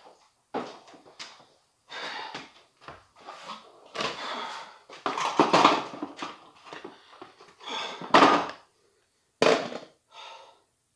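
A man's wordless vocal noises in short, irregular bursts, the loudest a little past eight seconds in.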